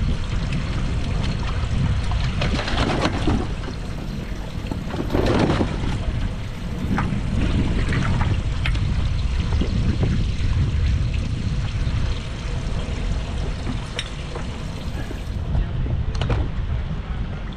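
Wind rumbling on the microphone, with several bursts of water splashing and dripping as live bass are lifted from a boat's livewell and dropped into a weigh bag.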